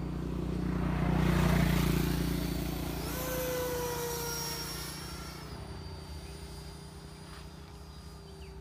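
Viper jet's 70 mm electric ducted fan on a close fly-by: a rushing whoosh that swells to its loudest about a second and a half in, then a high fan whine that drops in pitch as the plane passes and fades away.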